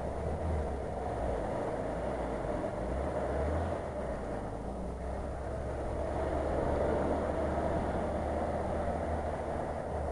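Nissan Patrol SUV wading through shallow floodwater some distance off: a steady engine drone mixed with the wash of water, over a low rumble.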